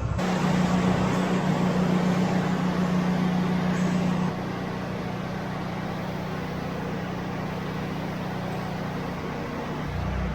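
Motor vehicle running steadily: a low engine hum under an even rushing noise, a little quieter from about four seconds in.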